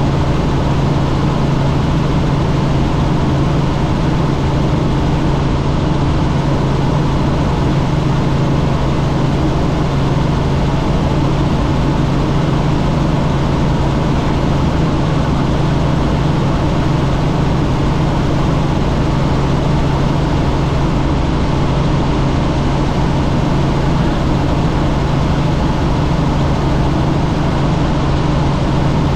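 Light helicopter in steady cruising flight, heard from inside the cabin: loud, unchanging engine and rotor drone with a strong low hum.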